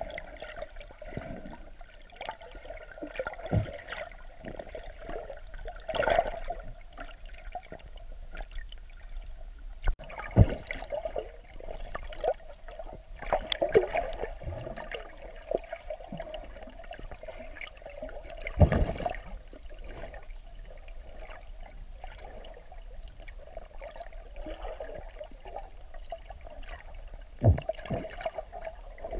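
Muffled water sound picked up by a camera held underwater, with several dull knocks scattered through it.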